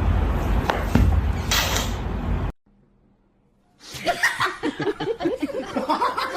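A steady rumbling noise with a click that cuts off suddenly; after about a second of silence, a person's voice laughing.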